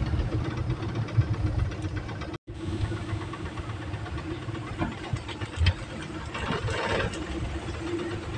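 A vehicle's engine running with a steady low rumble, heard from inside the cabin. The sound cuts out for an instant about two and a half seconds in.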